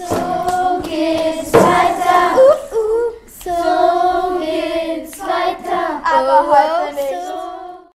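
Children's voices singing together in held, wavering phrases, stopping abruptly near the end.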